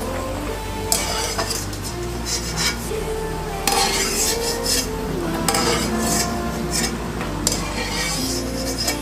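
A wire skimmer scraping and clinking against the sides of a steel pot in irregular strokes as fried cashews are scooped out, over the sizzle of hot ghee.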